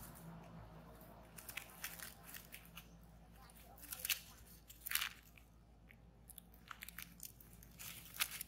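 Faint, irregular soft clicks and crunches from a nursing macaque pair: the mouth sounds of the mother and her suckling infant, close to the microphone.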